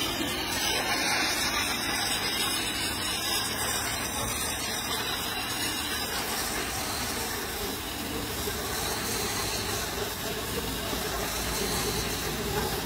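Pressure washer jet spraying onto the metal back doors of a truck's box trailer, rinsing off the foam: a steady hiss of water, its tone shifting about six seconds in.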